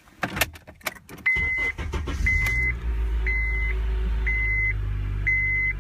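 A few clicks of the key in the ignition, then the 2006 Honda Accord's 2.4 L inline-four starts about a second in and settles into a steady idle, its first start on fresh oil after an oil change. Over the idle, a dashboard warning chime beeps about once a second.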